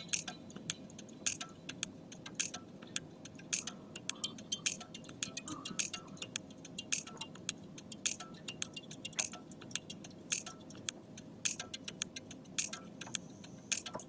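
Light, sharp ticking clicks, two or three a second at uneven spacing, over a faint steady hum.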